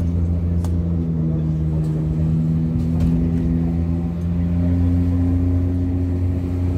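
Airport apron shuttle bus's engine droning steadily under way, heard from inside the passenger cabin, its pitch shifting slightly with engine speed, with a couple of faint clicks.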